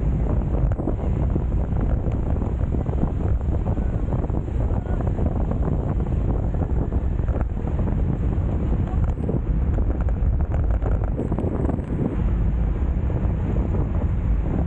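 Wind rushing over a bike-mounted action camera's microphone while riding at road-race speed. It makes a steady, heavy low rumble throughout.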